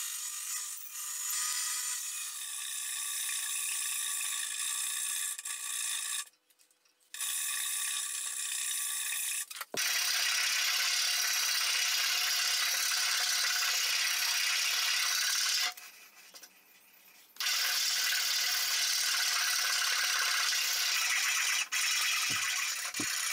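Workshop tools working wood: a steady, hissy machining noise with a faint whine, in several shots that cut off abruptly and start again.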